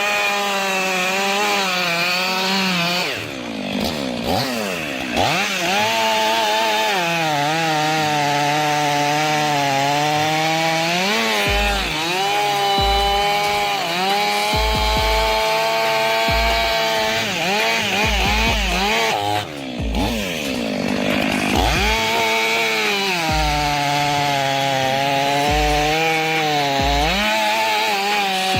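Chainsaw running at high revs while cutting wood, its engine note steady apart from two places where the revs sag and climb back up.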